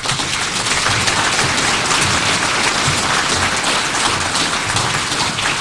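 Audience applauding: dense, steady clapping from a crowd that eases slightly near the end.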